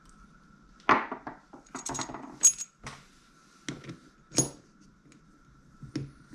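Metal parts of a Shimano Stella SW spinning reel clinking and knocking as they are handled and fitted together: a run of sharp taps, a few with a bright metallic ring, while the handle is being set on the right-hand side.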